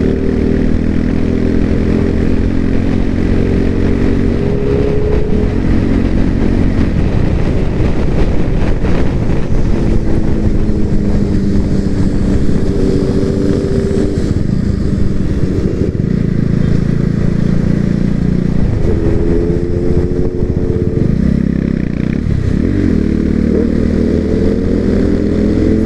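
Motorcycle engine accelerating through the gears, its pitch climbing and dropping back several times, over a steady rush of wind. It is heard through a microphone inside the rider's helmet.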